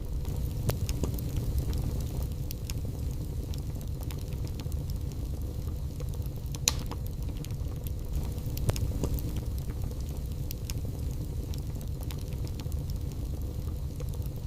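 Wood fire burning in a fireplace: a steady low rumble with scattered crackles and pops, a sharper pop about seven seconds in and another a couple of seconds later.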